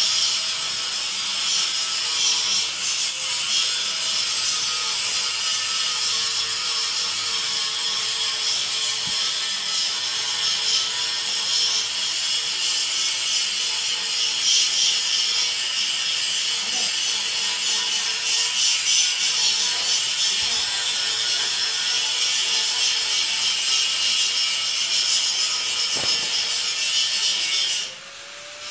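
Steady scratchy rubbing of fingers working the rubber anode cap on a CRT picture tube, close to the microphone. It cuts out briefly near the end.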